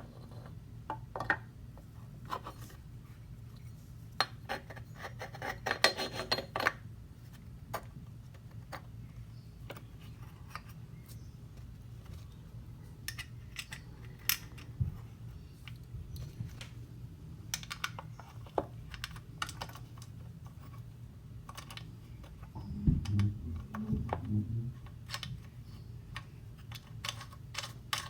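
Scattered small clicks and taps of metal parts being handled as a side extension is fitted to a sliding miter saw, with a quick run of clicks about five seconds in and a brief low knocking a few seconds before the end.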